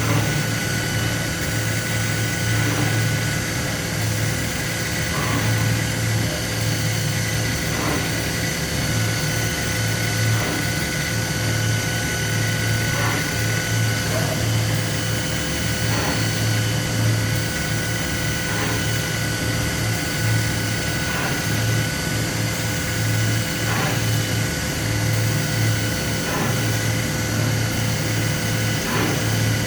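Masterwood Speedy 207 wood CNC machining centre running: a steady motor hum with constant whining tones, and a short sound repeating about every two and a half seconds.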